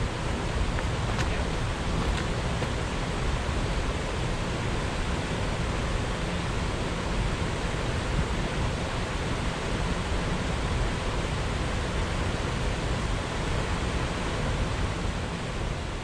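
Steady, unbroken rushing roar of a nearby waterfall, with a fluttering low rumble underneath.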